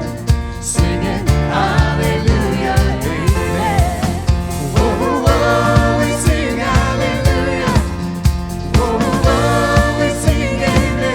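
Praise band playing a wordless stretch of a contemporary worship song, with a steady drum beat and melodic lines over it.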